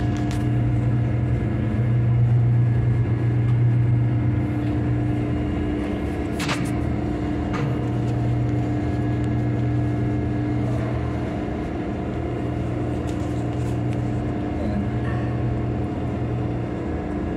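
Steady low hum of ship's machinery heard from inside a steel lube oil sump tank, with two brief knocks near the middle.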